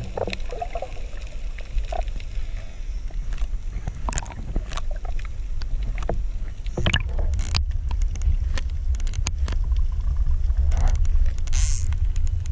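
Water noise picked up by an action camera in its waterproof housing while snorkelling: a steady low rumble that grows stronger toward the end, scattered sharp clicks and taps, and a short hiss near the end.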